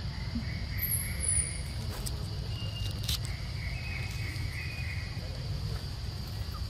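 Forest ambience: a steady, high insect drone, with a few faint high chirps, a high falling whistle about a second in, and a single sharp click about three seconds in.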